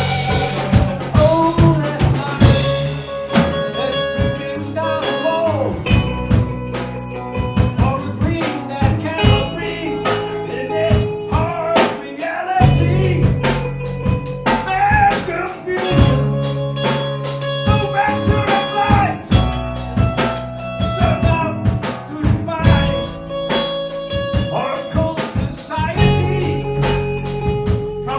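Live band playing an instrumental passage: guitar melody lines over bass and drum kit.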